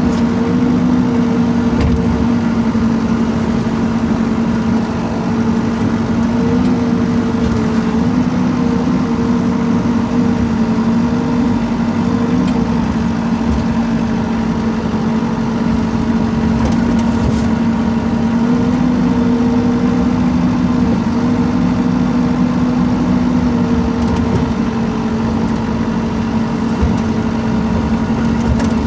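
Rippa R32 mini excavator's engine running steadily at working speed, its pitch lifting slightly now and then as the hydraulics take load while it digs a trench.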